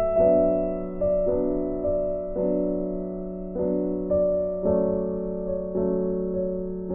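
Background piano music: soft chords struck every half second to a second over a held low note, each chord fading before the next.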